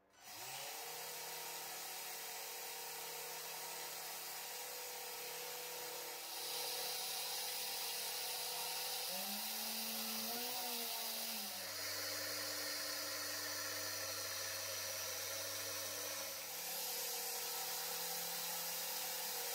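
A small DC brushless motor spins up about half a second in, driving reduction gearing and a belt to a small plastic impeller water pump: a steady whine with gear noise. Its pitch shifts several times as the speed is adjusted by hand, wobbling around the middle. Over it is a hiss of water from the pump outlet splashing into a bowl.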